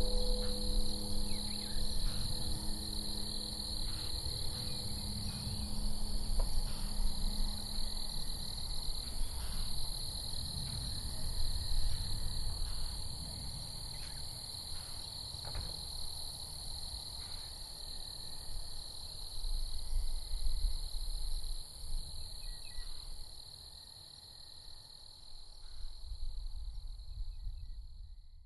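A steady, high-pitched outdoor chorus of calling creatures, heard over an uneven low rumble. The last held note of background music fades out within the first several seconds.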